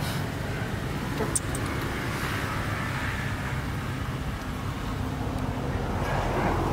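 Steady low outdoor background rumble, with a brief sharp click about a second and a half in.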